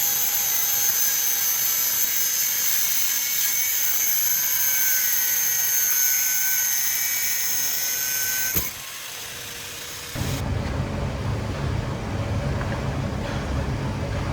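A power tool runs with a steady high-pitched whine for about nine seconds and stops with a click. After a short quieter stretch, a low, steady rumbling noise takes over.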